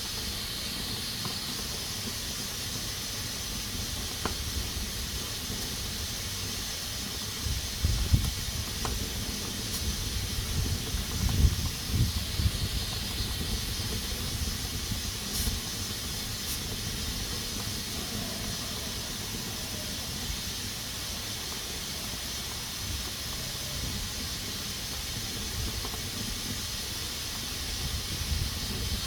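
Pressure cooker hissing steadily as steam escapes through its valve. Some louder low rumbling bursts come between about 7 and 13 seconds in.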